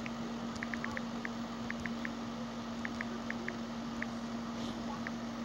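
Phone on-screen keyboard sounding short high ticks in irregular runs as a comment is typed, over a steady low hum and hiss.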